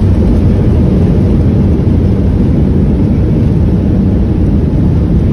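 Loud, steady low rumble of an airliner heard from inside the cabin during descent, with the plane shaking.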